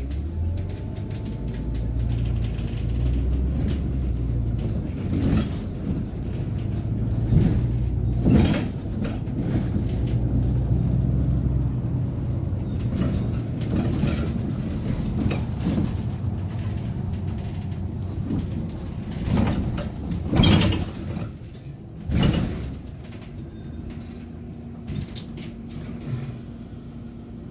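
Inside a city bus: the engine drones low and steady as the bus drives, with knocks and rattles from the body, two of them loud near the end of the ride. About 23 s in the level drops as the bus draws up at a stop and stands with a quieter steady hum.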